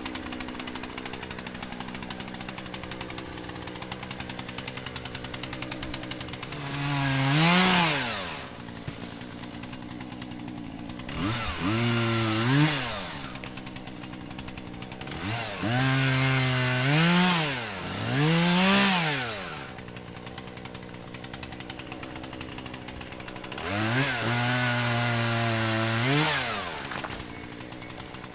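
Chainsaw idling and revved up to full throttle five times, each rev held for one to three seconds and falling back to idle, as a felled tree is cut up.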